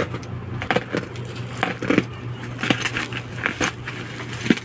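Packaging being handled while a box is unboxed: a run of sharp, irregular crinkles and crackles, one or two a second.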